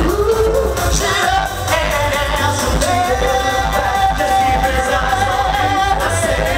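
Male vocal group singing a pop song live into microphones over loud pop music with a steady beat; one note is held for about three seconds in the middle.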